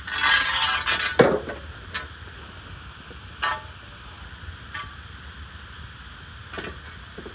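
Half-inch metal conduit and a hand conduit bender being handled: a scraping rustle in the first second, a sharp knock just after it, then a few light metallic clinks about a second or more apart.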